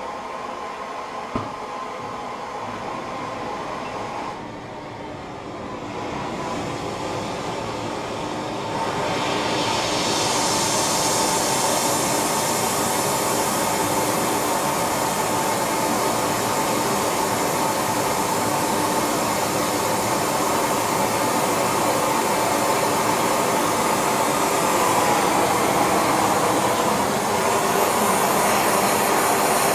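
Gas torch running steadily with a hiss, heating a batch of metal in a crucible. It grows louder about six seconds in and again about ten seconds in, with a single sharp click near the start.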